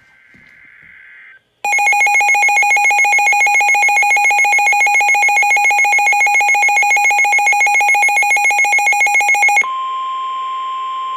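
Weather alert signals. A short burst of data noise ends, then a loud, rapidly pulsing electronic alarm tone sounds for about eight seconds. It is followed by a quieter steady single-pitch warning tone over radio hiss.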